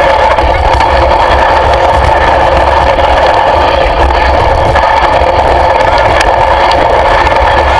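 An engine running steadily without rising or falling.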